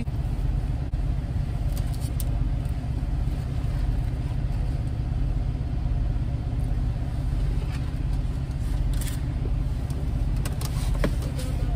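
Car engine idling, a steady low rumble heard from inside the cabin, with a few faint clicks and rustles near the end.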